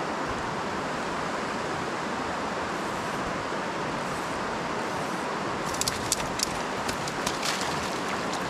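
Steady rush of water pouring over a river weir. A run of sharp clicks comes in from about six seconds in until near the end.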